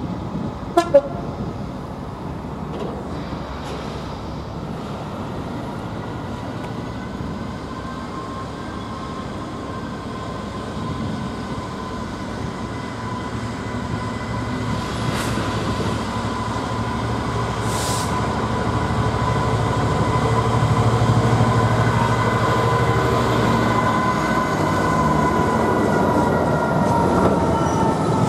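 A train approaching, a steady whine over a low rumble that grows louder over about twenty seconds and drops slightly in pitch near the end. Two sharp clicks about a second in.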